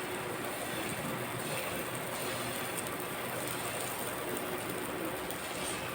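Pancake batter sizzling steadily in a buttered frying pan on a low fire.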